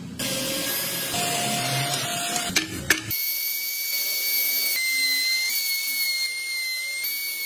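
A steady hiss with a couple of sharp clicks. About three seconds in it gives way to a compact trim router running, a high steady whine that shifts slightly in pitch as it cuts slots into a wooden board.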